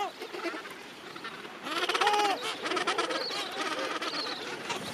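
Gentoo penguins calling across a rookery: many overlapping braying calls, with a louder, pulsing bray about two seconds in.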